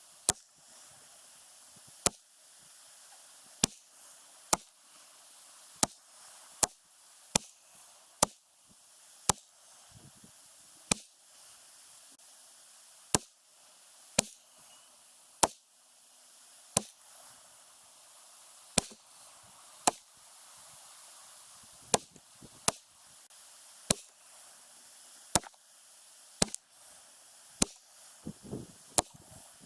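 Ruger 10/22 semi-automatic .22 LR rifle firing Remington Golden Bullet rounds one at a time, about two dozen sharp cracks at an uneven pace of one shot every one to two seconds.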